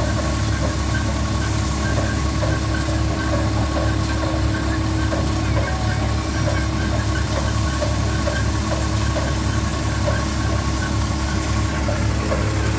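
Tractor-driven grain thresher running steadily, powered by a Farmtrac tractor's engine: a deep continuous drone with a steady hum and a regular knocking rattle from the machine, with threshed grain pouring into a steel trolley.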